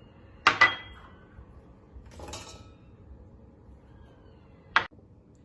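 Kitchenware being handled during cooking: two quick clinks with a short metallic ring about half a second in, a softer rustle around two seconds, and one sharp knock near the end.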